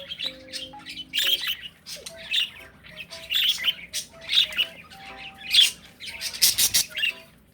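Pet bird squawking and chirping, a string of short, harsh calls repeating about once or twice a second, with a quick run of rapid calls near the end.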